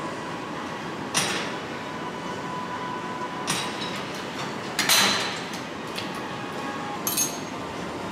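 Metal clanks of gym machine weight stacks, about four sharp knocks a couple of seconds apart, the loudest about five seconds in, over a steady background hum.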